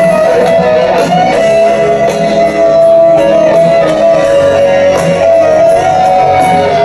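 Live rock band playing a slow ballad, led by an electric guitar holding one long sustained lead note that steps up in pitch near the end.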